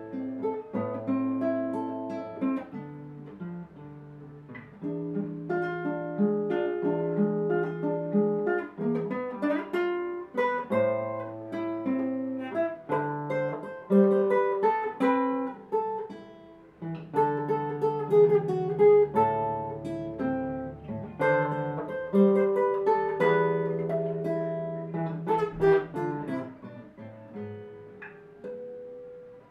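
Solo classical guitar played fingerstyle: a plucked melody over held bass notes, with a few loud chord attacks along the way.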